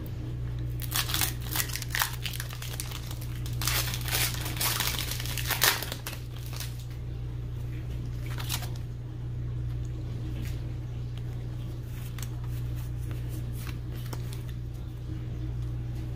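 Foil wrapper of a Pokémon trading-card booster pack crinkling and tearing open in a cluster of bursts over the first six seconds, with one more burst a little later and then faint rustling. A steady low hum runs underneath.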